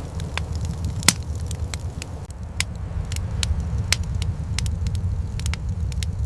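Irregular sharp crackles and pops over a steady low rumble.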